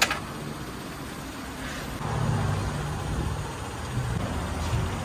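A sharp click, then from about two seconds in a louder, uneven low gurgle as engine oil pours from a 4-litre plastic jug into a funnel over a steady background hum.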